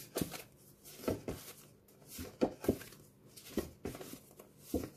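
Stiff cardboard flashcards being flipped through by hand, one card after another: a string of about ten short, sharp flaps and rustles at uneven intervals.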